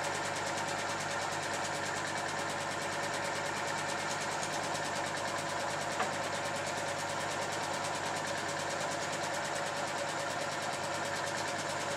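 Film projector running: an even, fast mechanical whirr, with a single sharp click about six seconds in.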